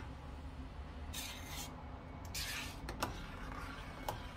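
Metal spoon stirring thick tomato and pepper sauce in a stainless steel pot: two scraping strokes about a second apart, with a few sharp clinks of the spoon against the pot, over a low steady hum.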